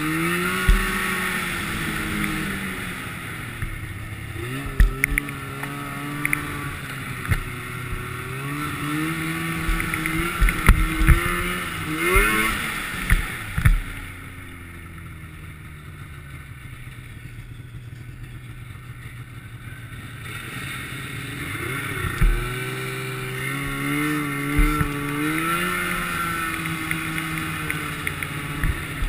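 Snowmobile engine running on the trail, its pitch rising and falling with the throttle, with sharp knocks and thumps over bumps in the first half. About halfway through it drops to a low, quieter run for several seconds, then speeds up again.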